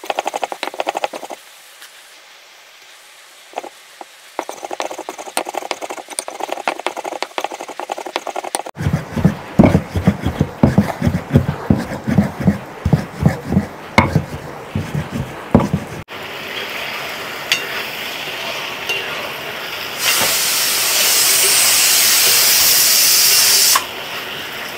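Cumin and coriander seeds with a little salt being ground on a flat grinding stone by a round hand-held stone: repeated rolling and scraping strokes in a quick rhythm, the spices being worked down to a fine paste. Near the end a loud steady hiss lasts a few seconds.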